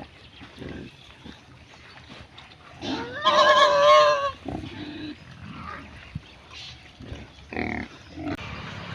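Pigs grunting in short, scattered calls, with one loud, wavering squeal lasting about a second, three seconds in.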